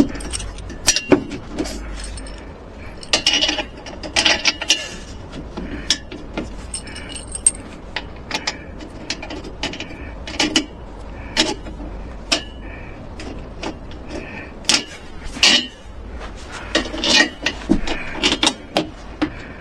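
Irregular clicks, taps and clatter of small hard objects being handled, with short scraping rustles between them.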